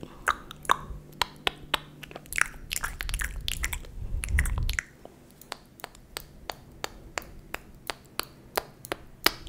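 ASMR mouth sounds made close to the microphone: an irregular run of sharp tongue clicks and lip smacks, several a second, with a low rumble about three to five seconds in.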